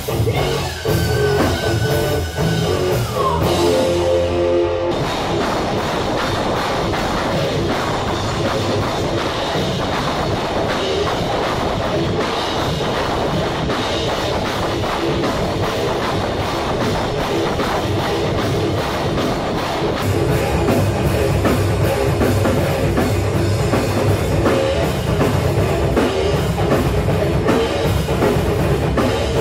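Very loud rock band rehearsing: guitar and drum kit. It opens with held guitar notes, one bending down in pitch. The full band comes in about five seconds in, and the drums and bass get heavier from about twenty seconds.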